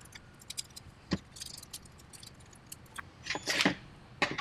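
Small clicks and ticks of a hand tool and fingers handling the thin wire leads of the hot end's heating resistors, with a sharper tap about a second in and a brief rustling scrape about three seconds in.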